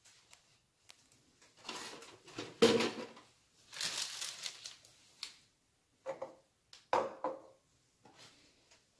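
Granular sodium acetate crystals being handled in a plastic tub, in several short bouts of scraping, crunching handling noise.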